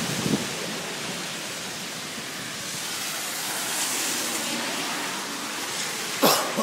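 Heavy typhoon rain falling in a steady hiss, with a short loud sound about six seconds in.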